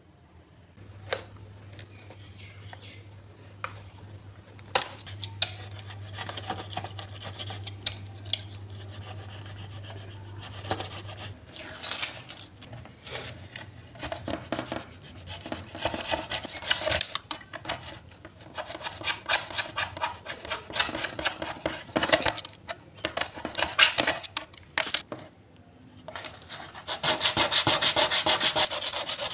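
Utility knife blade scraping hardened hot-melt glue flush on a plastic panel in repeated short strokes, ending in a few seconds of fast, steady rubbing over the repaired spot.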